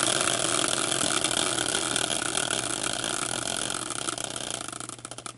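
Homemade prize wheel, a caster wheel spinning on its metal caster bracket, giving a fast rattling whir that fades as it slows. Near the end it breaks into a few separate ticks, further and further apart, as it coasts to a stop.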